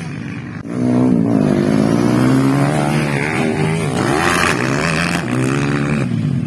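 Dirt bike engine revving hard close by. It comes in loudly about a second in and rises and falls in pitch as the throttle opens and closes.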